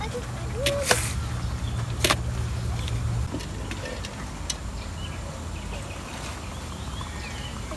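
Low steady rumble of road traffic, which stops about three seconds in, with a few sharp clicks and knocks over it.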